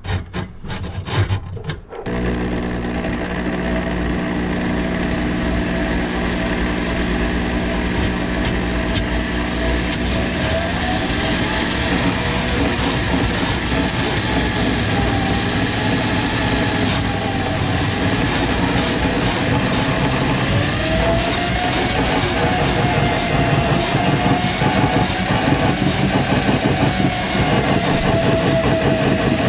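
Handheld electric drum drain auger: a few knocks, then the motor starts about two seconds in and runs steadily, spinning its cable into a kitchen drain line plugged with grease. A wavering whine and scattered rattling clicks come in as the cable works in the pipe.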